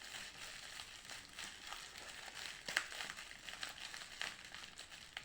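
Packaging crinkling and rustling as it is handled and opened, with irregular small crackles and clicks.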